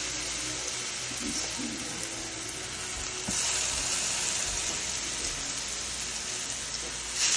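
Skewers of cream-marinated chicken sizzling in hot oil in an electric skillet. The sizzle swells each time a fresh skewer is laid into the oil, about three seconds in and again, louder, near the end.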